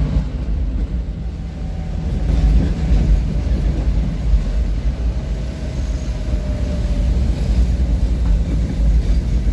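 Steady low rumble of a vehicle on the move, heard from on board, with a faint tone sliding slowly down in pitch in the middle.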